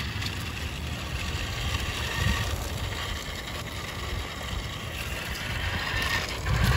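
Radio-controlled toy Corvette running on asphalt: a steady whir from its electric drive and hiss from its wheels rolling on the road, over a low, uneven rumble.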